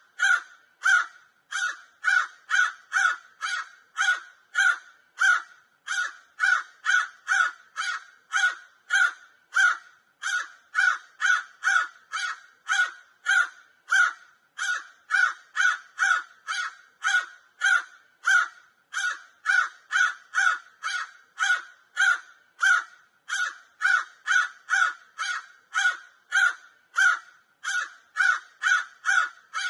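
Crow cawing over and over: short caws at about two a second, without a pause.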